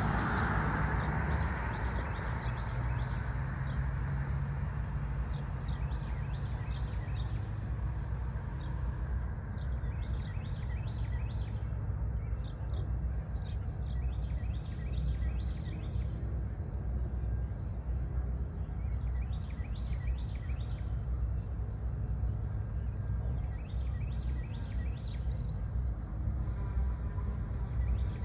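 Small birds chirping again and again over a steady low rumble. A louder rushing noise fades away in the first couple of seconds.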